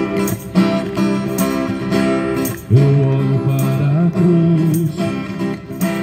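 Acoustic guitar strummed in a steady rhythm, with tambourine jingles on the strokes. About three seconds in, a man's singing voice comes in over the guitar.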